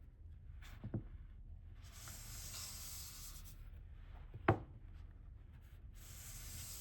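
Sharpening stone drawn in long rasping strokes across the steel edge of a Mora-style ice auger blade, honing it: one stroke about two seconds in and another near the end. A light knock about a second in and a sharper, louder one about four and a half seconds in.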